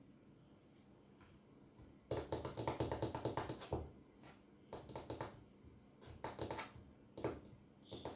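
A deck of tarot cards being shuffled: a rapid run of card flicks for about two seconds, then a few shorter bursts of flicks.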